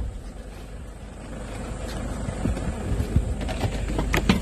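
Low, steady rumble of a vehicle heard from inside its cabin, with a run of short sharp clicks and knocks starting about three and a half seconds in.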